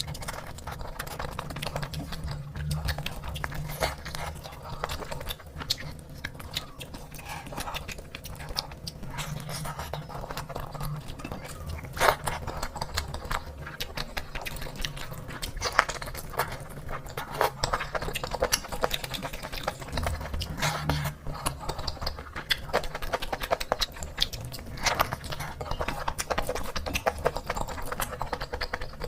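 Close-miked eating sounds: chewing and wet mouth clicks and smacks, coming thick and irregular over a low steady hum.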